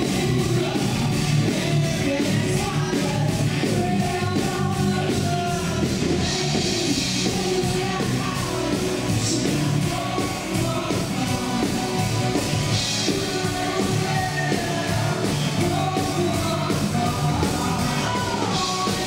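Live rock band playing loud: a woman singing lead over electric guitar and a steady drum beat.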